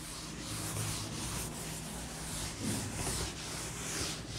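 Chalkboard being wiped with a cloth duster: repeated rubbing strokes across the board, about two or three a second, as chalk writing is erased.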